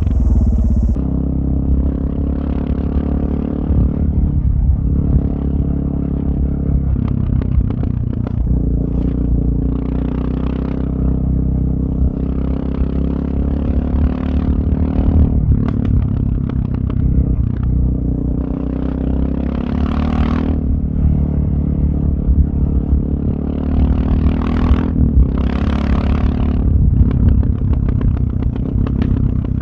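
Suzuki DR650's single-cylinder four-stroke engine running through an FMF Powercore 4 exhaust, its pitch rising and falling as the throttle is opened and eased. Gravel clatters under the tyres, with louder bursts of hiss about two-thirds of the way through.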